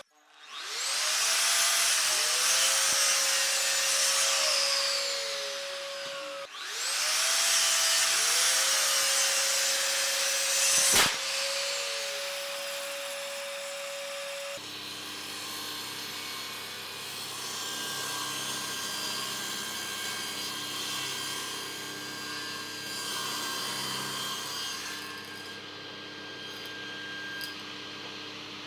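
Electric power tool cutting wood: the motor winds up to a steady whine twice, with loud cutting noise, and a sharp click near the end of the second run. About halfway through it cuts off suddenly and a quieter steady hum with several held tones takes over.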